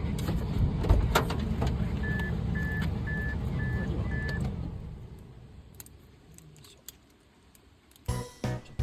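Low, steady rumble of a car with a few clicks, and five short high electronic beeps about half a second apart in the middle; the rumble then fades away to quiet near the end, and music begins just before the end.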